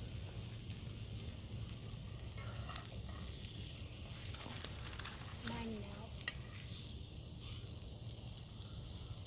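Meat patties sizzling steadily in a frying pan over campfire embers, with light scrapes and clicks as a knife moves them about in the pan from a couple of seconds in.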